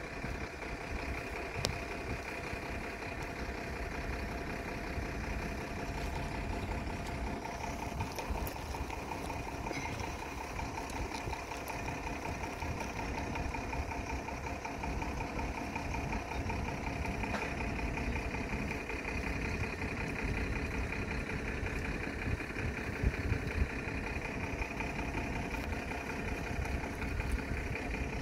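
A moored vessel's diesel engine idling steadily, a continuous hum with a steady pitched whine over an uneven low rumble.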